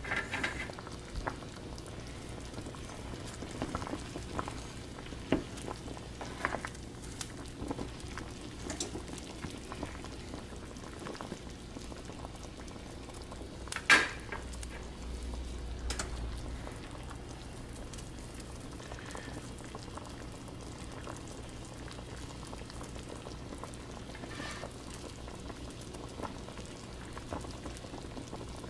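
Saucepan of water with chicken pieces at a rolling boil: steady bubbling with scattered small pops, and one sharp click about halfway through.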